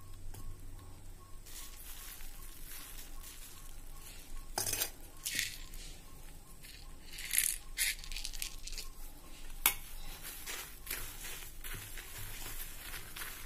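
A spoon clinking against an aluminium pot and moringa leaves rustling as spice powders are tipped in and mixed by hand. One sharp clink stands out about ten seconds in.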